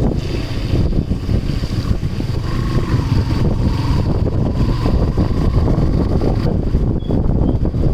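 Wind buffeting the microphone over a steady low rushing noise, with a faint, steady high-pitched whine above it.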